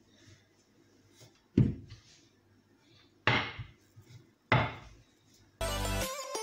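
A wooden rolling pin knocking and rolling over tortilla dough on a granite countertop, three separate strokes a second or two apart. Background music with a beat comes in near the end.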